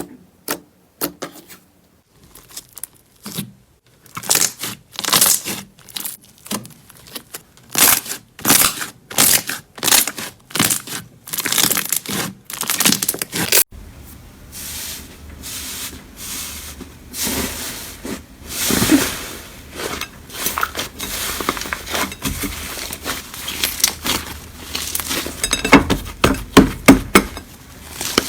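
Slime being squeezed, poked and stretched by hand close to the microphone, giving rapid crackling pops and clicks. About halfway through the sound cuts to another clip with denser, more continuous crackling and squishing.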